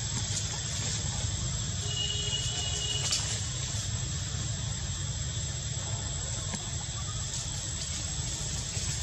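Steady outdoor background rumble and hiss, with a short, faint, high even-pitched squeal about two seconds in.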